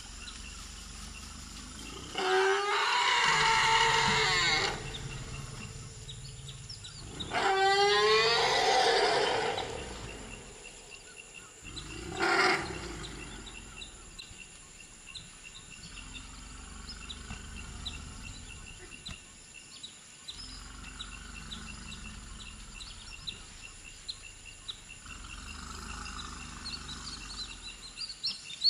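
African forest elephants calling: two long, loud calls of about two and a half seconds each, starting about 2 and 7 seconds in, then a short call about 12 seconds in.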